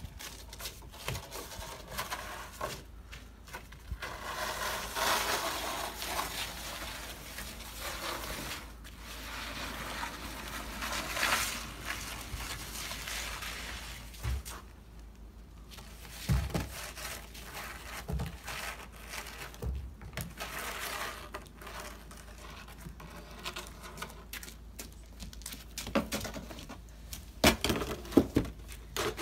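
Plastic snow shovel scraping wet slush across a wooden deck in repeated pushes a few seconds long, with a few sharp knocks near the end.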